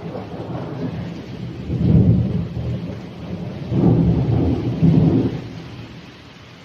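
Thunder rumbling in two long swells, about two seconds in and again from about four to five seconds in, over steady rain; the rumble dies away near the end.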